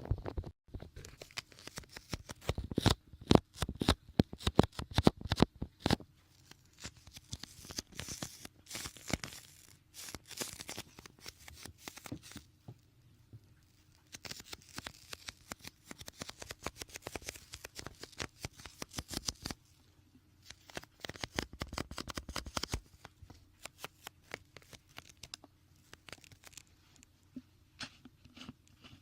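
Konjac puff sponge squeezed and patted close to the microphone, giving fast sticky crackling in bursts with short pauses.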